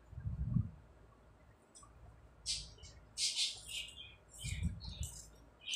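Scissors snipping through fabric: a run of short, crisp, irregular cuts starting about two seconds in, with a few soft low thuds as the cloth is handled on the floor.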